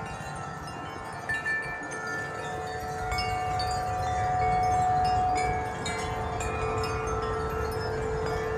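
Several tuned metal tube wind chimes ringing in a gust of wind, with many overlapping notes struck and left to sustain. Wind rumbles on the microphone, growing about three seconds in.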